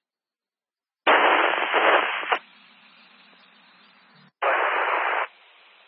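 Two-way radio static on a scanner: a loud burst of hiss about a second in, lasting just over a second, then a faint hiss. A second loud burst follows at about four and a half seconds and again drops to a faint hiss. No voice comes through.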